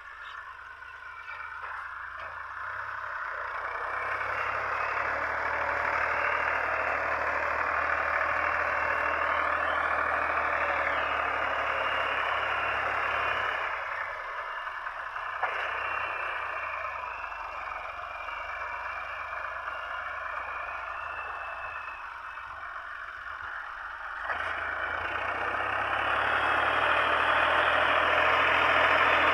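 Diesel tractor engine running steadily under load as it pulls a plough through the soil. It grows louder over the first few seconds, drops back about halfway through and swells again near the end.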